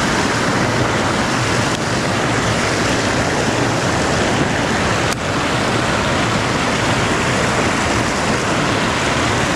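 Steady rush of a creek running high and swollen after heavy overnight rain.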